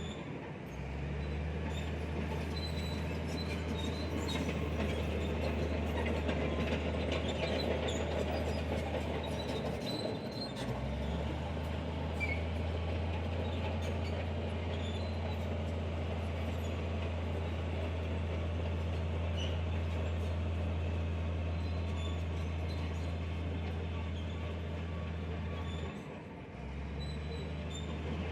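Crawler bulldozer working: a steady deep diesel drone with the clatter and squeal of its steel tracks. The sound dips briefly twice, about ten seconds in and again near the end.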